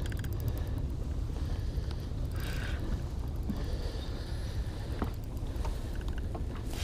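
Steady low rumble of wind and water around a small fishing boat on open water, with no distinct events.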